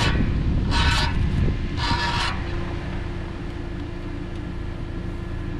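Tractor engine running with a steady low rumble. Over it come three short, high squeals about a second apart in the first half, then a steady hum.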